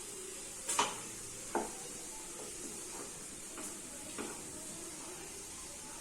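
A masala with freshly added puree sizzling in a cooking pan, a steady high hiss. A spoon strikes and scrapes the pan twice in the first two seconds, loudest of all, with a few lighter strokes later as it is stirred.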